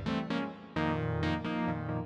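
Background music: sustained chords that are struck and fade, with a new chord coming in about three-quarters of a second in.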